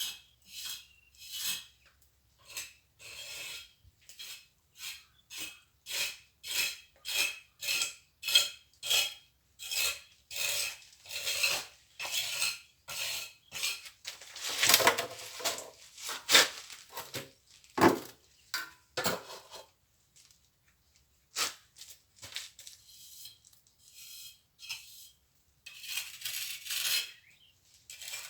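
Steel plastering trowel scraping and spreading cement mortar in repeated short strokes, about two a second, then a few heavier scrapes and a fast cluster near the end.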